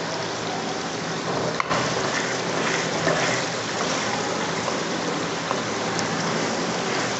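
Tomato masala sizzling and bubbling in ghee in a large aluminium pot while a wooden spoon stirs it, with one knock about a second and a half in.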